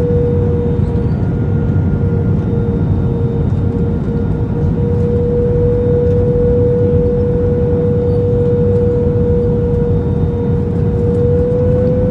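Steady jet noise inside an Airbus A321 cabin: a low roar of engines and airflow with a constant humming tone on top.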